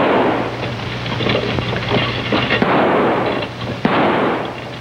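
Rifle gunshots, several shots over a steady rushing rumble, with a low electrical hum underneath.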